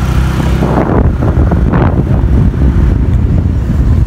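Heavy wind buffeting on the microphone of a moving scooter, over the low rumble of the scooter's engine and the road.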